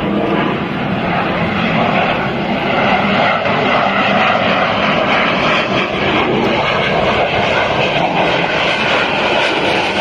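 Loud, steady jet engine noise from KAI T-50B jet trainers flying overhead in formation.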